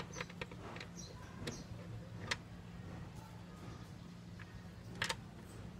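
Scattered light clicks and taps from a plastic wall-clock frame being handled as its back is screwed on, the sharpest tap about five seconds in, over a steady low hum.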